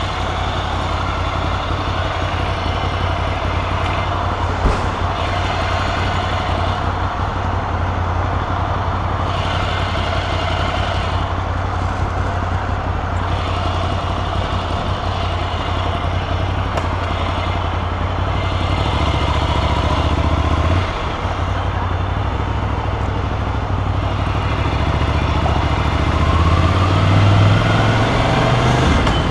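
Motorcycle engine idling steadily, then pulling away with the engine note rising about two-thirds of the way through and again near the end. There is one short click early on.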